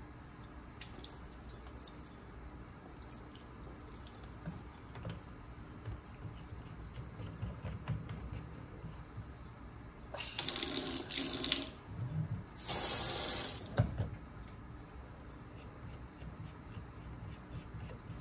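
Kitchen faucet turned on twice in short runs of about a second each, water splashing into the sink. Faint clicks of small parts being handled come before.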